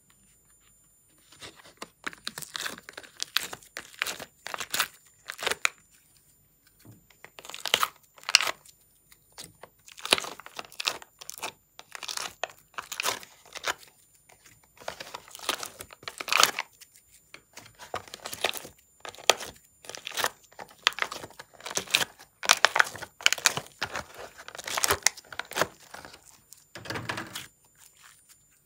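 Hands popping shaped pieces of soft slime out of a flexible plastic mold tray and handling them, heard as irregular clusters of crackling and crinkling, one about every second. Near the end there is one fuller, lower squish as the slime is pressed and stretched.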